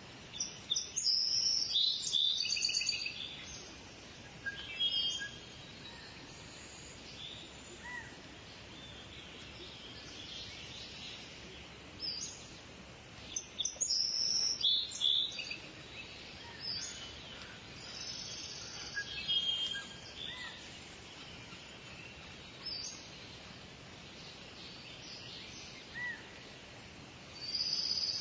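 Small birds chirping in short clusters of quick high notes over a steady background hiss.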